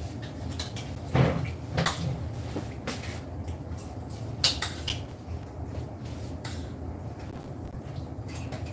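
Spoons and forks clinking and scraping now and then on ceramic plates during a meal, a few sharp clicks spread out over a low steady hum.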